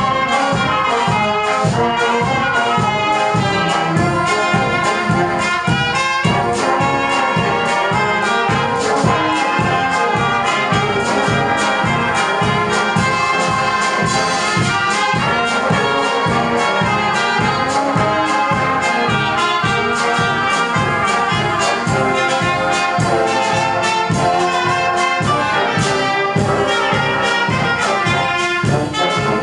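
Brass band of trumpets, trombones and tubas playing together, loud and continuous with a steady beat in the low brass.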